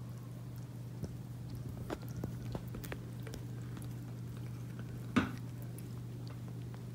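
Small wet clicks of a calico mother cat licking her newborn kitten, over a steady low hum, with one short sharp knock about five seconds in.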